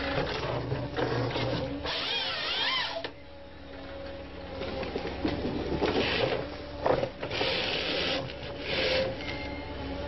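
Wheeled forestry harvester working: the engine and hydraulics hum steadily while the harvester head fells and handles a tree, with a run of louder noisy bursts in the second half.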